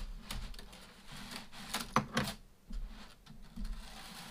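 Irregular light clicks and rustles of a thin chain necklace being handled and untangled, with a few soft knocks on the table.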